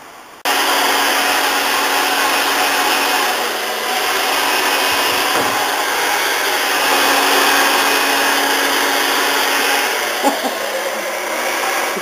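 Electric blow dryer switched on about half a second in, running with a steady hum and rush of air as it dries a wet terrier's coat; the hum dips in pitch briefly twice.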